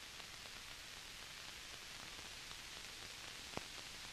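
Steady faint hiss of an old film soundtrack, with one faint click about three and a half seconds in.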